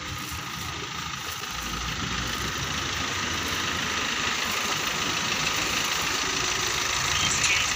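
Street traffic noise with a motor vehicle's engine running close by, a low rumble that comes in early and grows gradually louder.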